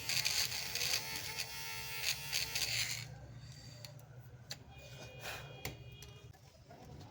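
A small electric tool buzzing loudly, cutting off about three seconds in, followed by a faint steady hum with a few light clicks.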